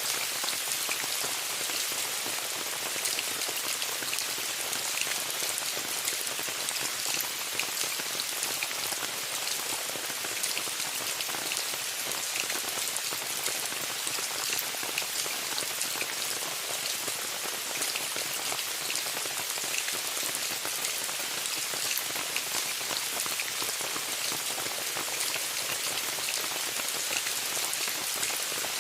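Steady rain falling on a tent, a dense even hiss with many small sharp drop ticks.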